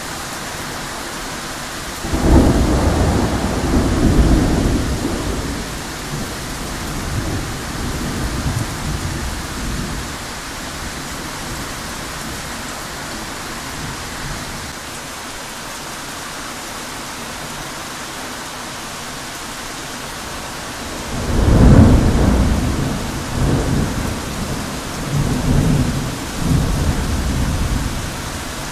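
Heavy rain pouring steadily, with two rolls of thunder. The first breaks about two seconds in and rumbles on for several seconds. The second, louder one comes about two-thirds of the way through and rolls on in several surges.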